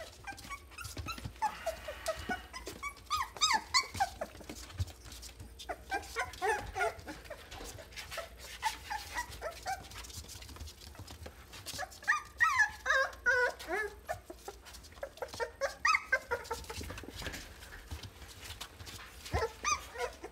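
Three-week-old American Bully puppies giving short, high-pitched cries while they play, coming in clusters with quieter gaps between.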